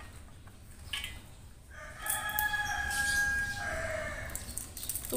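A rooster crowing once: a single long call of about two and a half seconds, starting about two seconds in and turning rougher toward its end.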